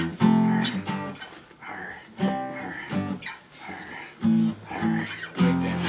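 Acoustic guitar strummed chord by chord, with short gaps between the strokes.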